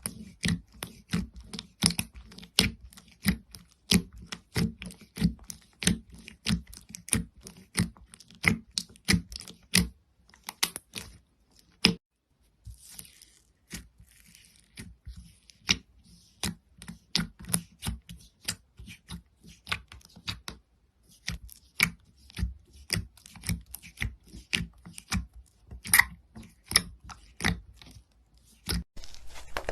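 Slime being squeezed and poked by hand, making a quick series of sharp, wet pops and clicks, a few a second, with a short lull partway through.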